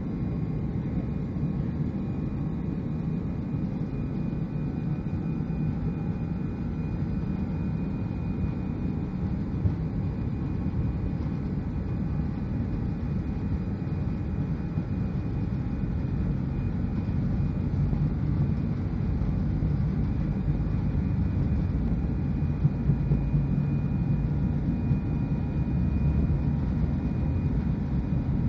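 Cabin noise of an Airbus A319 heard from a window seat over the wing: the jet engines' low, steady rumble with a faint thin whine as the plane rolls on the ground, growing a little louder in the second half, with a few light thumps.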